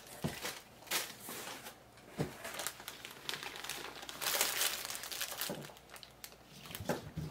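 Clear plastic packaging bags crinkling as they are handled and pulled open, with a few light knocks; the crinkling is loudest about four to five seconds in.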